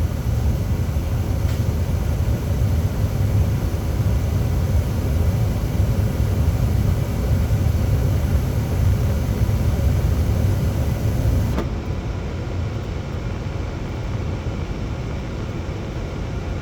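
Trane XR80 gas furnace running with a steady low rumble. About two-thirds of the way through, a faint click comes and the hiss above the rumble drops away, as the burners shut off and the blower keeps running.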